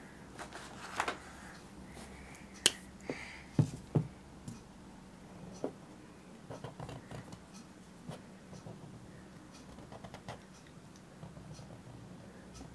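Felt-tip marker drawing on paper, with soft scratching and light taps of the pen and hands on the sheet. A few louder clicks and knocks come in the first four seconds.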